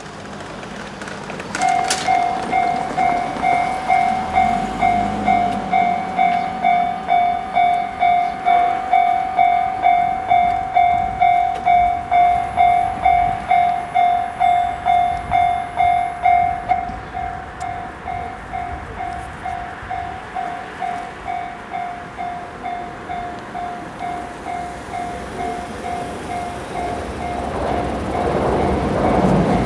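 Japanese railway level-crossing alarm starts about two seconds in: an electronic tone repeating about twice a second. It drops in volume about halfway through. Near the end the rumble of an approaching diesel locomotive grows louder.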